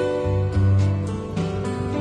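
Gentle instrumental background music.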